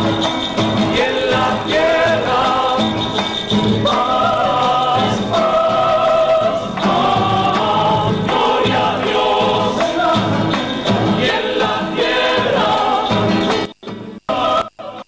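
A small group of voices singing a hymn together, accompanied by acoustic guitar. Near the end the sound briefly cuts out several times.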